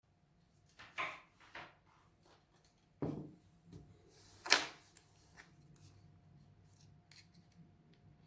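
Irregular handling noises: a few sharp clicks and scrapes of objects being handled, the loudest about four and a half seconds in, over a faint steady hum.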